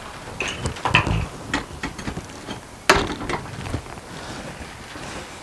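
Van passenger seat being set down onto a metal swivel base and slider rails: a run of knocks and clanks as it is shifted into place, the loudest a single sharp clank about three seconds in.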